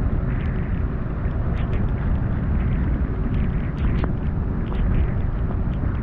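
Wind in a heavy rainstorm, a steady low rumble on the GoPro's microphone under a hiss of rain. Scattered sharp ticks of raindrops run through it.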